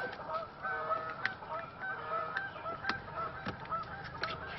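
Birds calling repeatedly in the background, several short calls a second, with a few sharp clicks from hands working the wiring connector behind the instrument cluster.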